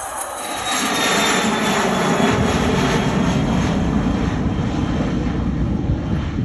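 Cessna Citation Latitude business jet's twin turbofan engines at takeoff power: a loud, steady roar with deep rumble that swells about a second in, with a high whine falling in pitch as the jet passes.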